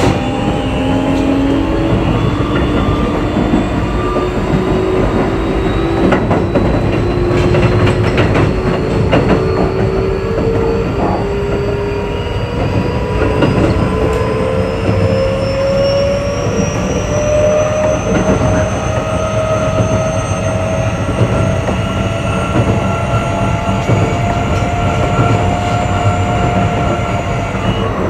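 Keio 8000 series electric train running: its traction motors whine in several tones that rise slowly in pitch as the train picks up speed, over a steady rumble. A few sharp wheel clicks come about a quarter of the way in.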